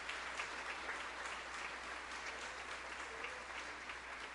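Congregation applauding, a dense patter of many hands clapping that slowly dies away.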